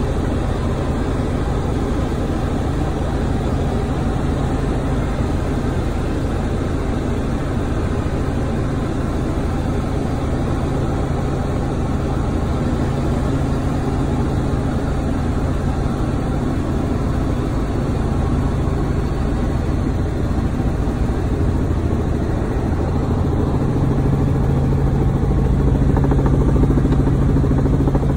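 Robinson helicopter in cruise flight, heard inside the cabin: a steady drone of engine and rotor, growing a little louder with a stronger low hum in the last few seconds.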